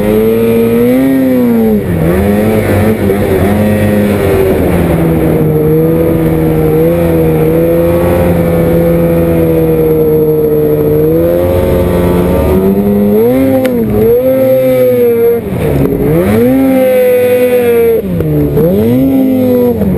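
Ski-Doo snowmobile's 800R E-TEC two-stroke twin running hard through deep snow. The pitch holds steady through the middle stretch, then falls and climbs again and again in the second half as the throttle is worked.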